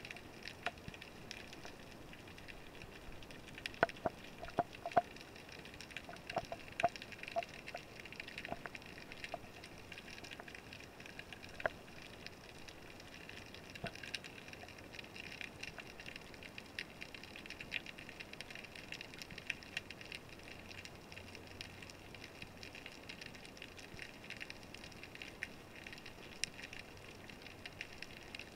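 Underwater ambience: a steady fine crackle with scattered faint clicks, and a cluster of sharper clicks about four to seven seconds in.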